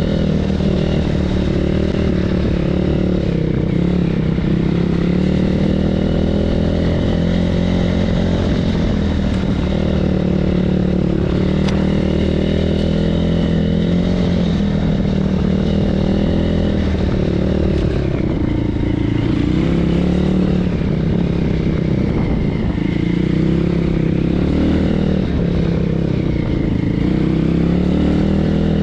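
BSE PH 150 pit bike's 150 cc single-cylinder four-stroke engine running under throttle on a trail ride, its pitch rising and falling as the rider works the throttle.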